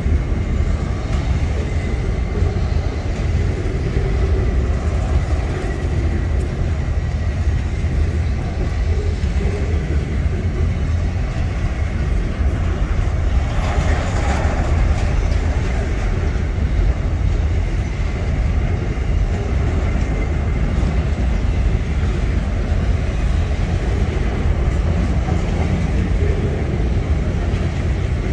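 Freight train of covered hopper wagons rolling past close by: a steady heavy rumble of steel wheels on rail with a faint steady high whine. A brief louder rush of noise comes about halfway through.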